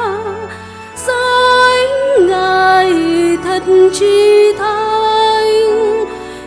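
A woman singing a slow Vietnamese hymn solo into a microphone, holding long notes with vibrato, over sustained low accompaniment chords that change every second or two.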